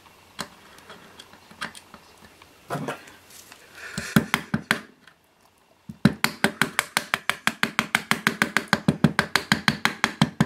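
A few scattered knocks and clicks, then from about six seconds in a fast, even run of light hammer taps on metal, several a second. The taps are an attempt to drive a stuck part out of the Soviet avionics unit's casing.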